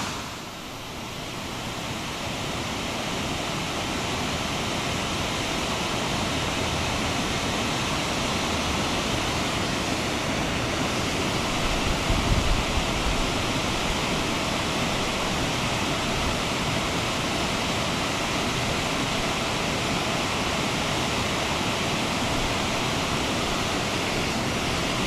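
Steady rush of fast-flowing creek water, rising in just after the start, with a brief low rumble about twelve seconds in.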